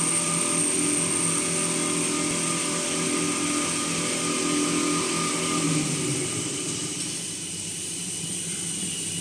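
Toilet paper rewinding line running: a steady machine hum with a high whine and hiss. The lower hum drops away about six seconds in.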